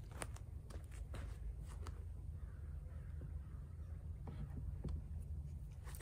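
Footsteps on dry grass and the handling of a wooden hive box: scattered light clicks and rustles over a steady low rumble of wind on the microphone.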